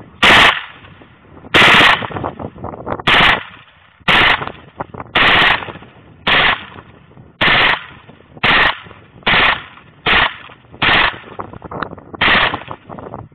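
Unsuppressed HK MP7 4.6×30 mm submachine gun firing about a dozen short bursts, roughly one a second, with brief pauses between them.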